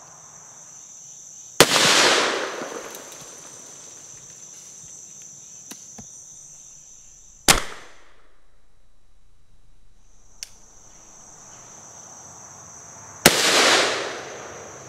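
Three single gunshots from a Savage Model 42 .22 LR/.410 combination gun, about six seconds apart, firing 2.5-inch Federal 000 buckshot from the .410 barrel and CCI Blazer .22 LR from the rifle barrel. The first and last shots ring out and fade over about a second; the middle one is cut short. A steady high buzz of crickets sits underneath.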